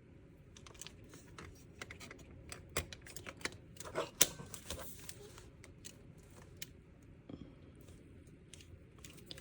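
Irregular small clicks and light rattling of an Olympus OM-10 35mm film SLR being handled while film is loaded, with a few sharper clicks near the middle.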